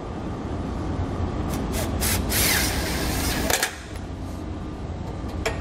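Bolts and a black steel winch mounting bracket being handled: a few sharp metal clicks about a second and a half in, then a noisy burst lasting about a second near the middle, over a steady low hum.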